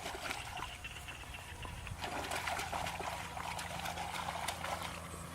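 Water trickling and splashing, with small clicks and patters, building up about two seconds in.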